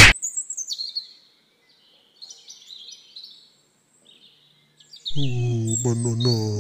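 Cartoon tweeting-bird sound effect, a few short high chirps that fade away over the first few seconds, the dizzy-after-a-fight effect. About five seconds in, a low steady hum sets in with bird chirping above it.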